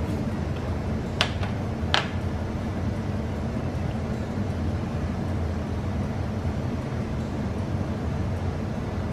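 Two sharp clinks of a metal spoon about a second apart, over a steady low hum.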